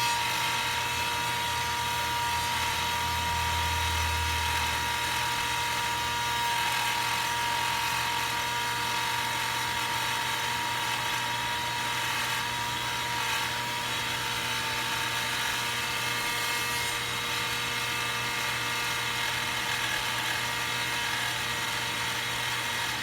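Old handheld hair dryer running steadily on its cool setting, its heating element switched off, blowing air with a constant motor whine; it sounds pretty sad.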